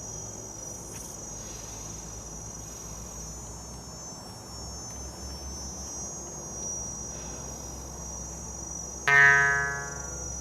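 Steady high trill of crickets over a low hum, then about nine seconds in a single ringing note from a struck or plucked instrument, sharp at the start and fading over about a second, as the sound bath begins.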